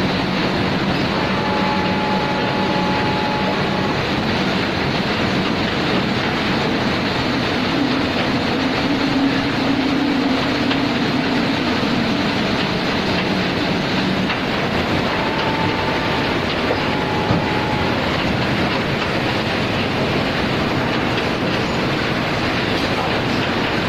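Uroko rotary veneer lathe peeling a log, a steady dense clatter and rumble of heavy machinery. A faint whine comes in twice, near the start and again past the middle.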